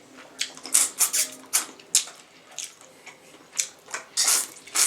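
Close-miked wet eating sounds from sauce-covered king crab legs: a string of short sucking and slurping noises, about a dozen in quick succession.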